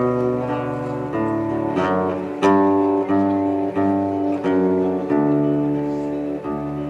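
Acoustic guitar strumming chords with no voice, the chord changing about every half second to second.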